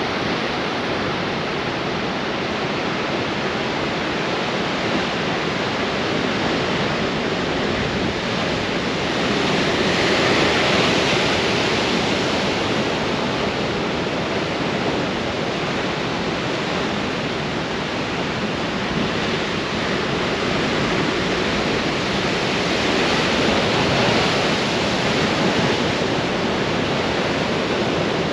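Ocean waves breaking on rocks in strong wind: a steady, dense rush of surf and spray that swells louder twice, about ten seconds in and again near the end.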